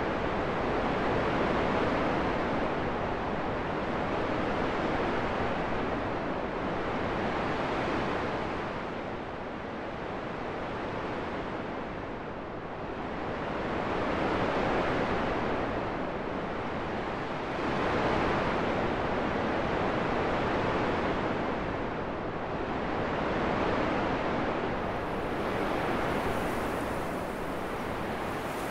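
Wind blowing in slow gusts, an even rushing hiss that swells and eases every few seconds.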